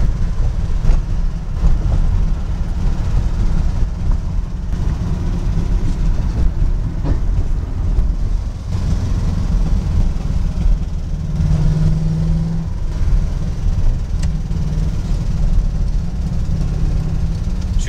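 Steady low rumble of a moving vehicle, road and wind noise heard from on board, with a short steady hum about eleven seconds in.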